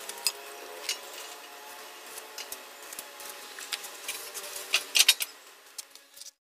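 Scattered light clicks and knocks of stainless steel railing pipes being handled and shifted on a welding jig, over faint steady background music. The sound cuts off shortly before the end.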